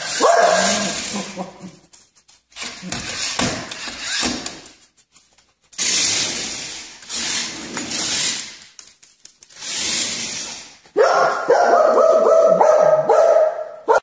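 Small dog barking and yapping in quick bouts, near the start and again through the last three seconds, with short bursts of hissing noise in between.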